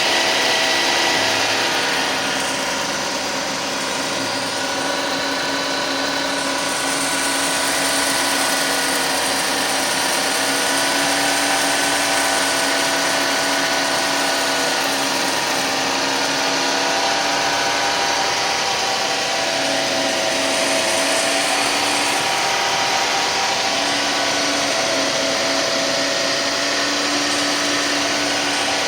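2006 Suzuki Grand Vitara's 2.7 L V6 engine running steadily soon after a cold start, with a weird grinding sound whose cause is unknown. Several steady whining tones drift slightly up and down in pitch over it.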